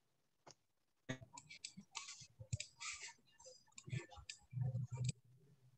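Quick, irregular clicks of a computer mouse and keyboard, starting about a second in and stopping shortly before the end.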